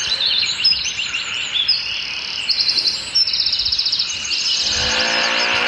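Birds chirping and trilling, with fast repeated trills in the middle. About five seconds in, a small engine starts running steadily underneath them.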